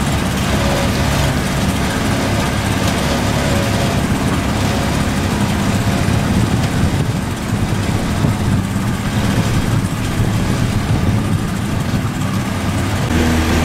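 Boat engine running steadily, with a new steady hum joining near the end.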